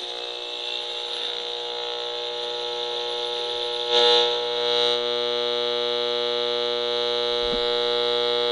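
Circuit-bent clock radio's speaker putting out a steady electronic drone, one pitched tone with many overtones, which swells louder for about a second midway.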